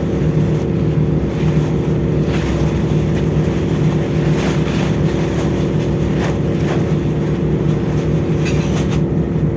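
Steady low drone of a ship's engines and machinery, with a few faint clicks and taps over it.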